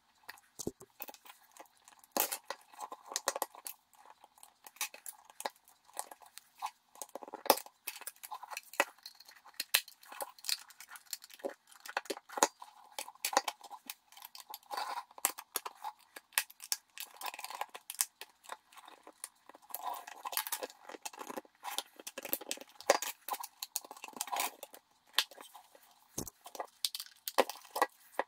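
Plastic trim tools, a thin metal blade and a plastic card prying at the seam of a VW Golf Mk6 auto-dimming mirror's plastic housing: many irregular clicks, scrapes and creaks of plastic as the housing is worked open.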